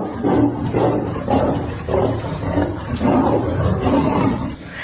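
Big cats growling and snarling while they play-fight: a steady run of rough growls, about two a second, over a low rumble.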